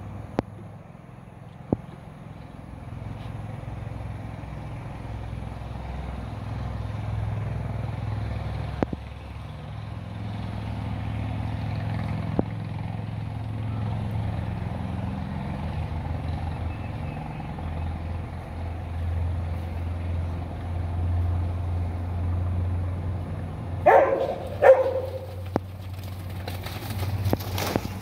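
A steady low engine rumble that slowly swells and fades, with a few faint clicks and two short, loud pitched calls about 24 seconds in.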